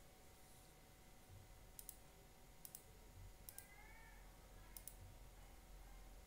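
Four faint, sharp computer mouse clicks, each a quick press-and-release pair, spaced about a second apart over quiet room tone.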